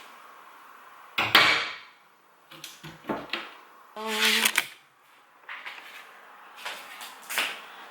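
Kitchen cabinet doors being handled: a sharp knock about a second in, then several lighter knocks and clicks of wooden doors being opened and shut, with a short squeak-like sound about four seconds in.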